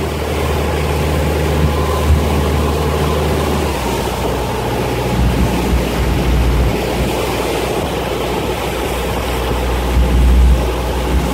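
Rinker 270 cabin cruiser under way at cruising speed: a steady engine drone under the rush of water along the hull and wind. The low engine note shifts about four seconds in.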